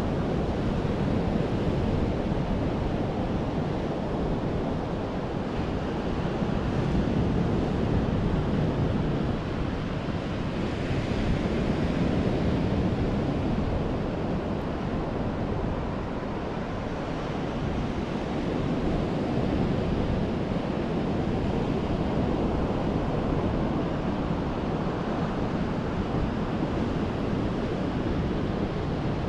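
Ocean surf washing onto the beach in slow swells, with wind rumbling on the microphone.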